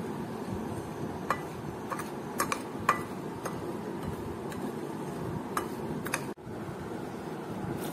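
Steel spoon scraping and clicking against a ceramic plate while mixing dry ground spices, with a handful of short sharp clicks spread over several seconds.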